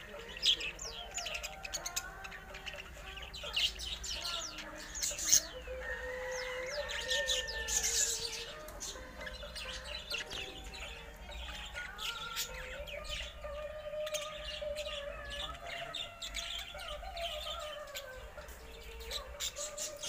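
Many birds chirping, a dense run of short, sharp calls throughout.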